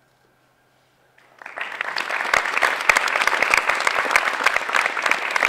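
Near silence, then audience applause breaks out a little over a second in and quickly builds to full, steady clapping.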